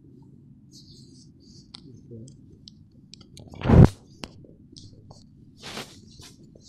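Handling noise from a phone being moved around: scattered faint clicks and rustles, one loud short thump-like rustle about four seconds in, and a shorter rustle near six seconds.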